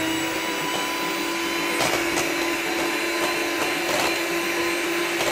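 Electric hand mixer running at a steady speed with an even whirring hum, its beaters whisking a cream cheese and white chocolate mixture in a stainless steel bowl. A few light clicks sound over the motor.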